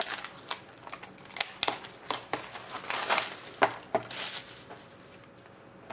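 Plastic wrapping crinkling and tearing as a sealed box of hockey trading card packs is opened: an irregular run of sharp crackles and snaps that thins out over the last second or so.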